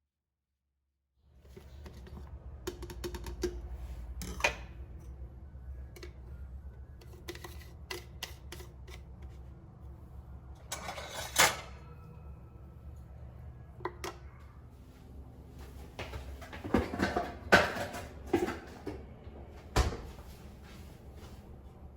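Light clicks, taps and handling noises of small objects at close range, over a low hum. There is a longer rasping noise about eleven seconds in, and a run of louder knocks and clatters near the end.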